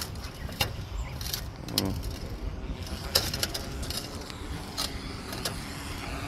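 Footsteps on a clay tile roof: shoes knocking and clinking on the tiles about five times, irregularly, over a low rumble.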